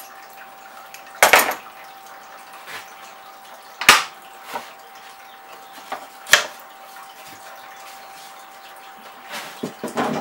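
A few separate knocks and clanks of a clamp and a plywood sheet being handled on a table saw's cast top: one about a second in, then about four, six and nine to ten seconds in. A faint steady tone hums underneath.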